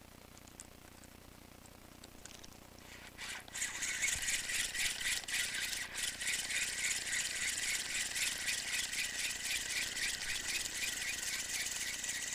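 Spinning reel being cranked to wind in a feeder rig, a steady whirr with a quick, even ticking, starting about three seconds in.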